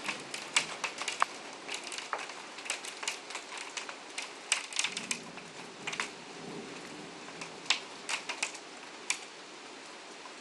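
Heavy downpour: a steady rain hiss with many irregular sharp clicks of big drops striking a hard surface close by, thinning out near the end.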